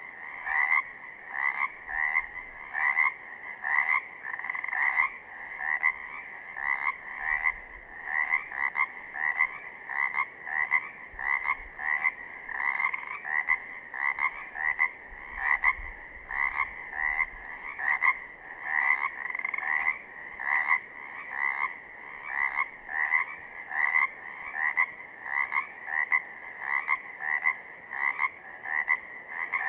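Pacific chorus frogs (Pacific tree frogs, Pseudacris regilla) calling: the males' ribbit breeding calls repeat evenly, about two a second, without a pause.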